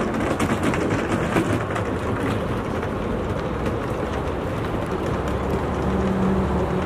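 Steady rumble of passing vehicles in a busy city, with a low hum that swells about five seconds in and fades after a second or so.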